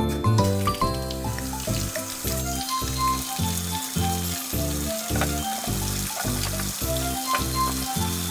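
Frying sizzle, a steady hiss over background music with a steady beat. The sizzle comes in just after the start.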